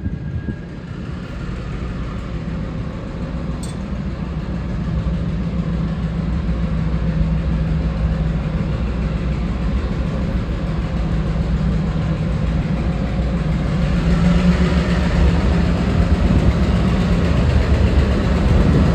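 Diesel-electric shunting locomotive, a V/Line Y class, with its engine running steadily at a low rumble and growing gradually louder.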